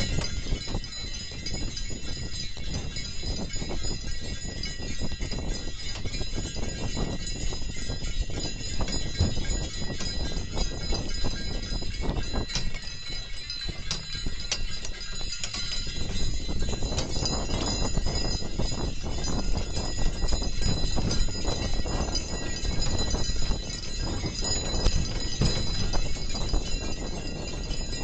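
Two cold-blooded draft mares pulling a sleigh over snow: a dense run of hoof falls and knocks from the sleigh and its harness, with a steady metallic jingling over a low rumble.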